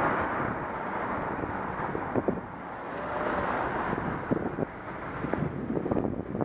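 Wind rushing over a bike-mounted camera's microphone while the bicycle rides through slow city traffic, with a few short knocks scattered through it.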